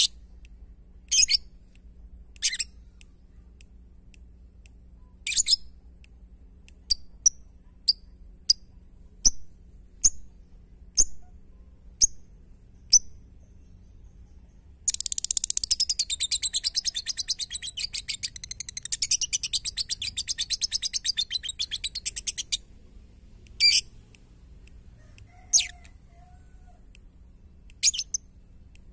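Lovebird calling: about a dozen short, sharp chirps roughly a second apart, then a rapid typing-like clicking chatter (the 'ngetik' song) for about seven seconds, then a few more single chirps.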